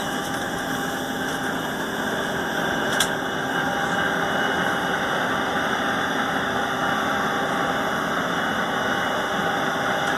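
Steady engine drone with a few faint steady tones through it, and one brief click about three seconds in.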